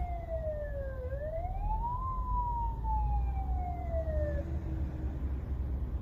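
Ambulance siren wailing: a tone that falls slowly, sweeps back up in about a second, then falls again and cuts off about four and a half seconds in. Low road and engine rumble from inside the following car runs underneath.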